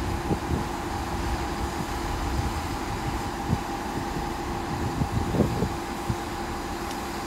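Class 166 and 165 Networker Turbo diesel multiple units idling at the platform while they wait to depart. A steady hum with two held tones over a low rumble, with a few faint knocks.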